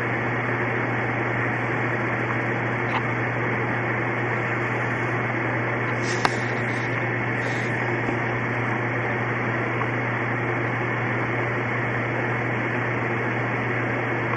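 Steady low hum with an even hiss over it, like a running fan or air conditioner. A sharp click comes a little after six seconds in, and a fainter one near three seconds.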